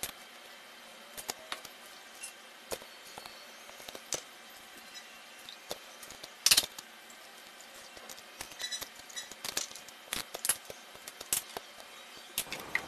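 Lentils and spices tipped from small glass bowls into a steel mixer-grinder jar: scattered clinks of glass and light rattles of grains hitting metal, with a brief clatter about six and a half seconds in.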